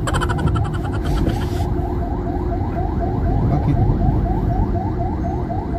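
Electronic alarm or siren tone. For the first second and a half it pulses rapidly, then it chirps upward about three times a second, over a steady low rumble of a car.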